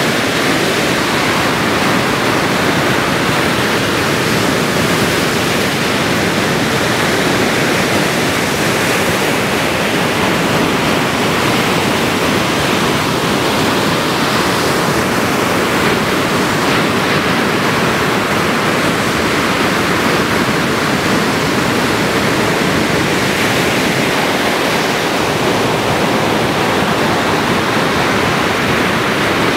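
Ocean surf: a steady, unbroken wash of breaking waves.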